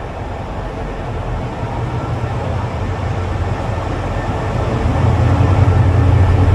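State Railway of Thailand diesel locomotive hauling a passenger train into the station, its deep engine rumble growing steadily louder as it approaches and stepping up clearly about five seconds in.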